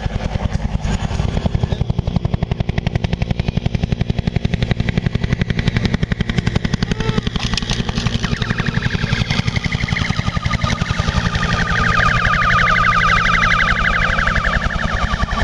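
Agusta-Bell AB212 twin-turbine helicopter flying low and close, its two-blade main rotor beating in a fast, steady pulse. A high turbine and tail-rotor whine builds in the second half as the helicopter draws near, loudest shortly before the end.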